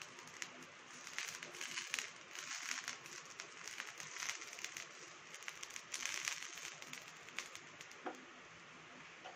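Oil sizzling with many small pops on a hot pan as it is brushed over a cooking wheat-flour sweet dosa; the sizzle eases near the end.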